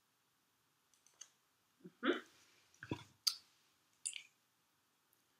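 Irregular clicks and knocks from small objects being handled and taken apart, the loudest about two and three seconds in.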